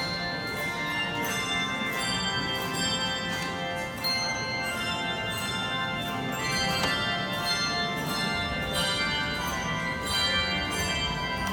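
A handbell choir playing a tune: many tuned handbells struck one after another, each note ringing on and overlapping the next.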